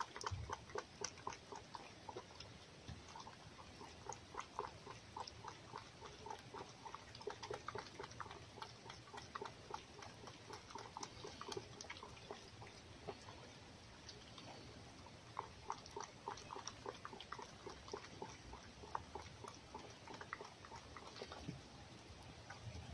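A small animal eating from a plate: faint, irregular chewing clicks, several a second.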